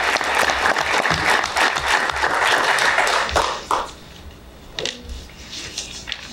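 Audience applause, dense clapping that dies away about three and a half seconds in, leaving a few scattered single claps or taps.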